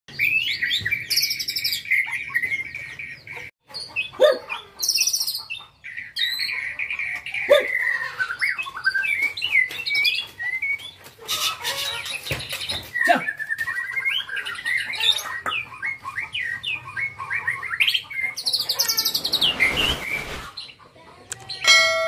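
Young white-rumped shama (murai batu) singing: a continuous run of varied whistled phrases, sliding notes and rapid chattering trills, with a short break about three and a half seconds in.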